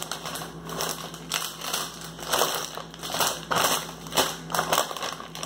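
Plastic snack bag crinkling and crackling in irregular bursts as it is handled and lifted.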